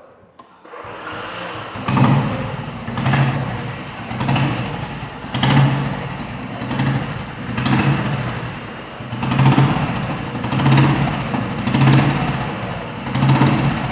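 2005 Royal Enfield Bullet ES 500's single-cylinder points-ignition engine started on its electric starter, catching within about a second, then running with its sound swelling and fading about every second and a bit.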